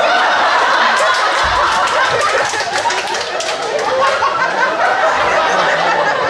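Audience laughing: many people laughing at once in a steady, loud wash.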